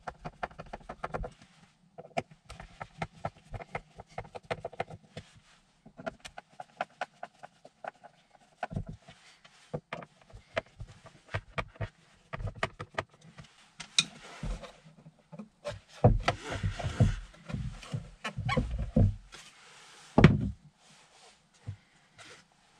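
A screwdriver turning screws out of the hard plastic base of a Shad SH58X top box: runs of small clicks and ticks. Louder knocks and scrapes of plastic come near the end, as the bottom support plate is handled and lifted off.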